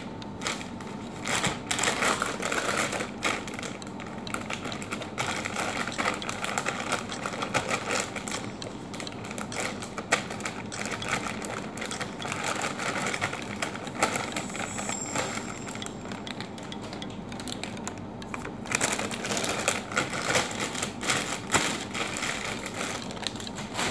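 Plastic bag of flour tortillas crinkling and rustling in gloved hands as it is opened and the tortillas are pulled out: a dense run of crackles with louder bursts now and then.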